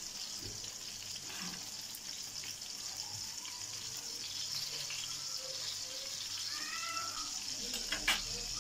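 Köfte meat patties frying in hot oil in a pan, a steady sizzle, as they are turned over with metal tongs.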